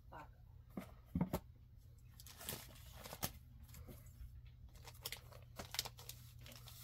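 Comic books being handled and shuffled: faint, irregular rustling and flapping of paper as issues are picked up and paged through, over a steady low hum.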